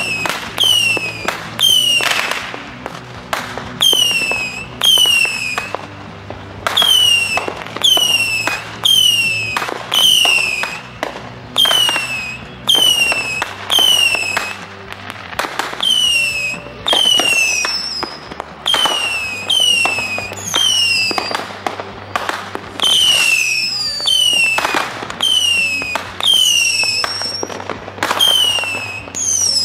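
Consumer fireworks going off in a steady string, about one a second. Each is a sharp crack with a short whistle that drops in pitch, fading into crackle.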